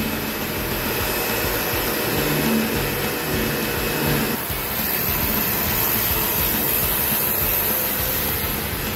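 Pressure washer running, its jet of water hissing steadily against a calf feeding trough and the tarmac. The low hum under the spray drops away about halfway through while the hiss continues.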